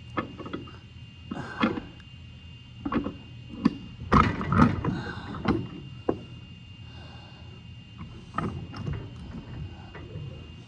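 Hand woodworking: short scraping strokes of a hand plane on wood mixed with irregular knocks and clatters of wood and tools, over a steady low hum.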